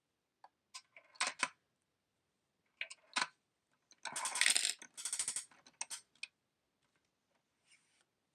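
Coins clinking into a miniature Bandai Carddass card vending machine in a series of sharp clicks, then a rattling stretch of its mechanism about four seconds in, followed by a few more clicks.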